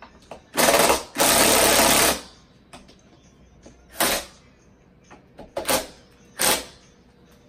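Cordless drill/driver driving screws to fasten a base onto a speaker cabinet: a run of about a second and a half in the first two seconds, then three brief blips of the trigger as the screws are snugged down.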